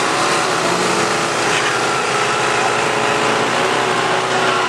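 A 1991 Pontiac Firebird Trans Am's V8 engine running hard as the car accelerates away down a drag strip, its note shifting in pitch as it pulls away.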